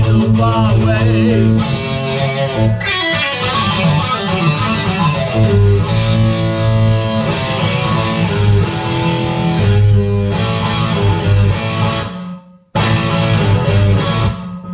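Telecaster-style electric guitar played in a rock instrumental passage. About three-quarters of the way through, the music stops dead for a moment, then comes back in.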